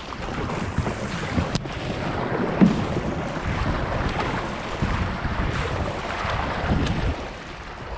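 Kayak paddle strokes dipping and splashing as the kayak moves through shallow, grassy water, with a couple of sharp knocks. Wind buffets the microphone throughout.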